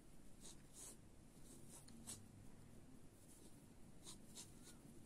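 Near silence with a few faint, scattered scratchy ticks: a small metal crochet hook and thin thread being worked by hand close to the microphone.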